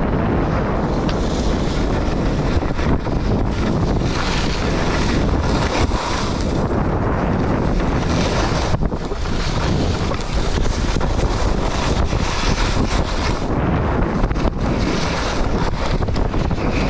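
Loud, steady wind rushing over a GoPro action camera's microphone during a downhill ski run, with the hiss of skis sliding on snow underneath.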